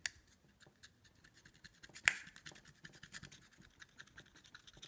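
Tip of a Torx screwdriver scratching across a hard drive platter: a rapid run of small scrapes and clicks, the loudest about two seconds in.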